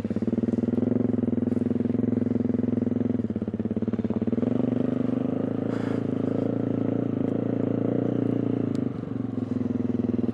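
KTM 350 EXC-F dirt bike's single-cylinder four-stroke engine idling steadily.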